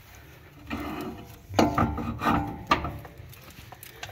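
Front brake caliper being wedged against the suspension so it hangs clear of its brake line: metal parts scraping, then three sharp knocks in the second half.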